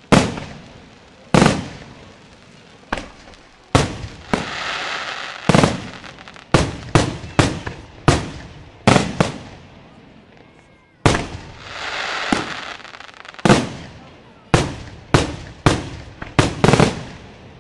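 Aerial firework shells bursting overhead: about nineteen sharp bangs, irregularly spaced and some in quick runs of two or three, each trailing off in a rolling echo. Twice, about four seconds in and again around eleven seconds, a longer rush of dense noise fills the gap between bangs.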